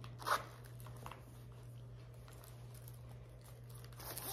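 Handling noise from a leather crossbody phone bag: a short rustle just after the start, then faint clicks and rustling as its clip and strap are worked, with more rustling near the end.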